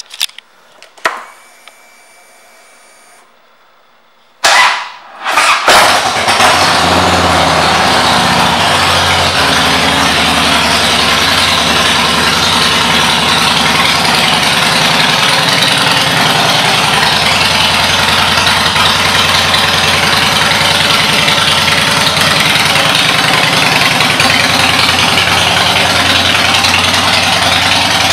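2008 Harley-Davidson Softail Deluxe's Twin Cam 96B V-twin, fitted with Vance & Hines pipes, being started: a click, then a short crank at about four and a half seconds, catching at about six seconds and idling steadily from then on.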